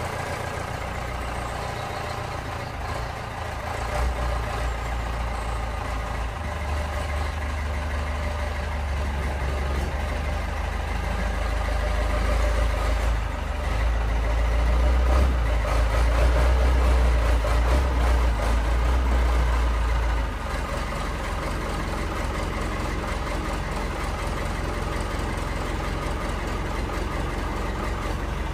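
Forklift engine running as the machine drives up carrying a load, growing louder and working harder for several seconds, then dropping suddenly to a steady idle about twenty seconds in.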